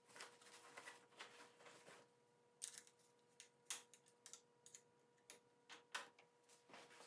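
Faint, irregular light clicks and taps from shifter and brake lever clamps being fitted onto a mountain bike handlebar.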